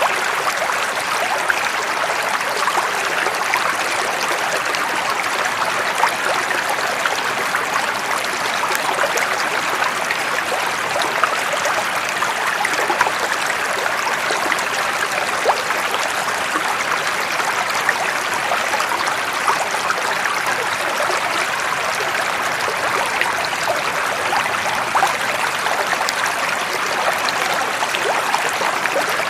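Running water of a stream, flowing steadily: an even rush scattered with many small splashes and trickles.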